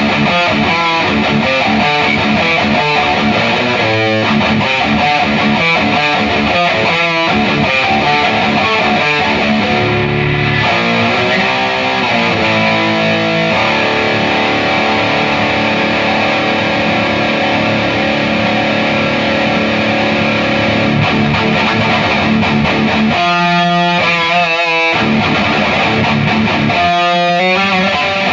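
Heavily distorted electric guitar played through a Peavey 6505 MH head into a Mesa 2x12 cabinet. Fast choppy riffing gives way to long ringing chords around the middle, then stop-start chugs near the end.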